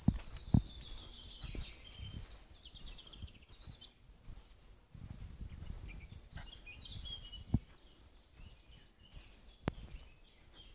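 Songbirds chirping and trilling in pine woods, over soft footsteps on a sandy path. A few sharp knocks stand out, the loudest right at the start and about half a second in.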